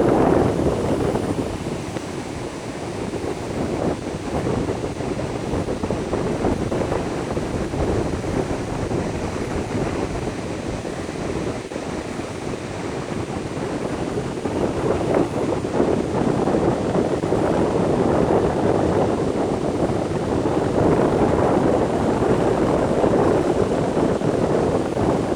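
Strong wind buffeting the microphone, a continuous rushing noise that grows louder about halfway through, with ocean surf mixed in.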